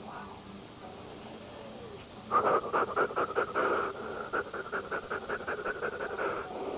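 A man doing a rapid panting breathing exercise: short, forceful breaths about six a second, starting a couple of seconds in, with a brief pause midway.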